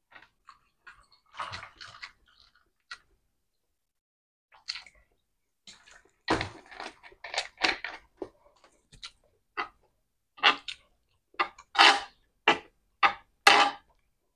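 Close-miked eating: chewing and mouth noises in short, irregular bursts that come louder and more often over the last few seconds.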